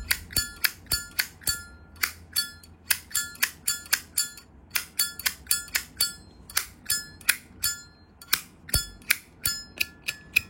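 A 1992 Zippo lighter's hinged lid being flicked open and snapped shut over and over, a rapid run of sharp metallic clicks, about four a second, many with a short bell-like ring.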